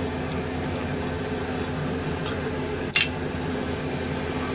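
Soup simmering in a small aluminium pan, stirred and ladled with a metal ladle, over a steady low hum. There is one sharp clink of the ladle against the pan about three seconds in.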